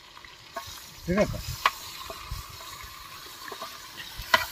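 Chicken pieces sizzling in a hot metal pot, the sizzle starting about half a second in, with a few sharp clinks of a spoon against the pot, the loudest near the end.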